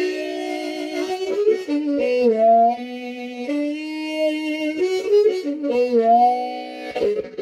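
Blues harmonica played cupped inside an empty tin can in a train imitation: long held chords that bend in pitch several times, the train-whistle part. Rhythmic chugging starts again near the end.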